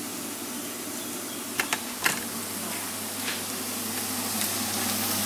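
Diced onion frying in sunflower oil in a pan, a steady sizzle that grows a little louder in the second half, with a few sharp clicks of handling about a second and a half to two seconds in.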